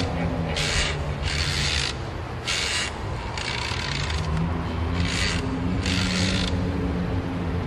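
Footsteps crunching through dry fallen leaves: six crunches, roughly one a second, stopping about a second before the end, over a low steady hum.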